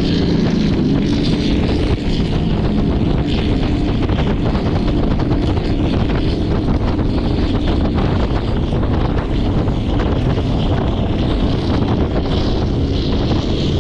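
Ranger bass boat running fast on plane through rough, choppy water: a steady outboard engine drone under heavy wind buffeting on the microphone, with the hull knocking over the chop.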